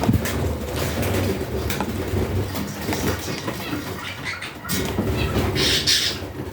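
Pet budgerigars chirping in short bursts, with a brighter spell of chirping near the end, over a steady low rumble.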